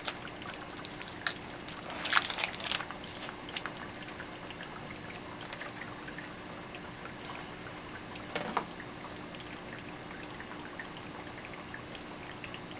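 An algae scrubber being handled into an aquarium: clicks of plastic and tubing with water trickling and splashing, busiest in the first few seconds, with one more splash about two-thirds of the way through. A faint steady hum runs underneath.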